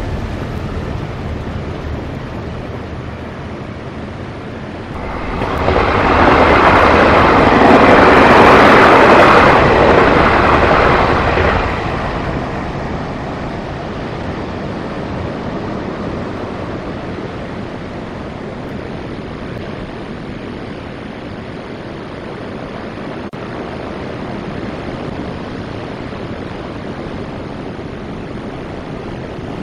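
A train passes the station: a rumbling rush that swells up about five seconds in and fades away by about twelve seconds. Steady surf and wind noise runs underneath.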